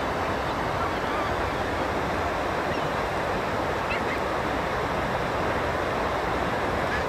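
River water rushing steadily, an even noise with no breaks.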